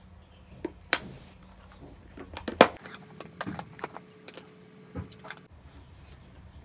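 A series of sharp clicks and knocks from objects being handled, with a sharp knock about a second in and a louder one about two and a half seconds in.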